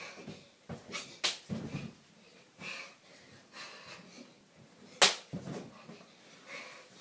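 Boy landing flips and jumps on a mattress: two sharp impacts about four seconds apart, the second the loudest, each followed by a short low bounce of the bed, with heavy breathing between them.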